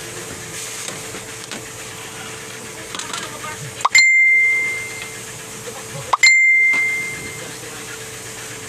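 Two bright bell-like dings about two seconds apart, each starting with a short rising chirp and then ringing out and fading over about a second.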